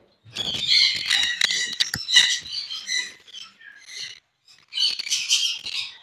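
Caged parrots squawking in a run of short, harsh calls, thinning out after about three seconds, then another burst near the end.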